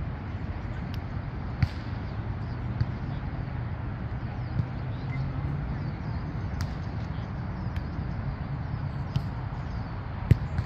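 A volleyball being struck by hands and arms several times during play, each hit a sharp smack, the loudest about a second and a half in and near the end, over a steady low background rumble.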